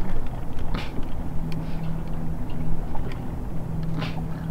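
Bass boat's electric trolling motor humming steadily over a low rumble of wind and water; the hum comes in about a second in and drops out briefly near the end. A couple of faint clicks sound over it.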